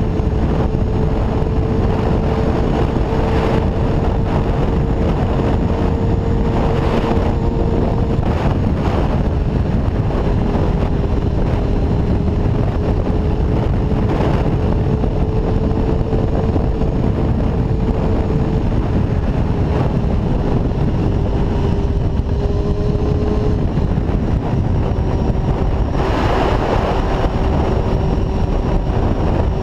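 1992 Honda CBR250RR's inline-four engine, fitted with a Musarri aftermarket exhaust, running at high revs at a steady cruise under heavy wind noise on the microphone. The steady engine note drops out briefly a few times and sits slightly lower near the end.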